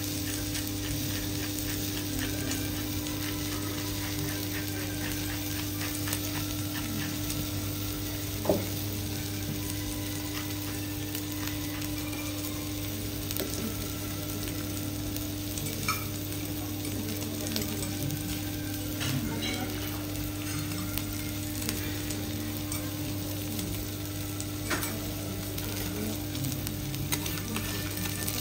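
Wagyu steaks and diced fat sizzling steadily on a hot teppanyaki griddle, with a steady low hum underneath. Scattered light clicks come through the sizzle, the sharpest about a third of the way in.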